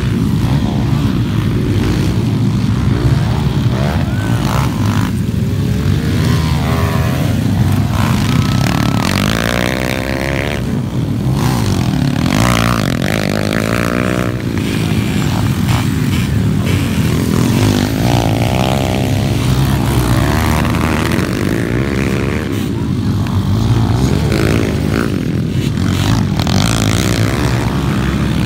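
Underbone motorcycle engines racing on a dirt track, their note rising and falling again and again as the riders accelerate and ease off.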